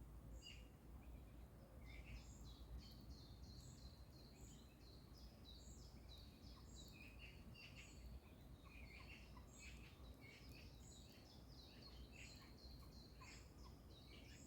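Faint birdsong: several small birds making quick, high chirps repeated over and over, with some lower calls between them and a steady low background rumble.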